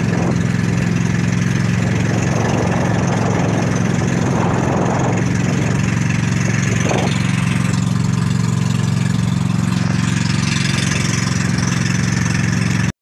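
Engine of a motorized outrigger boat running steadily under way, a constant low drone at even speed that cuts off abruptly at the end.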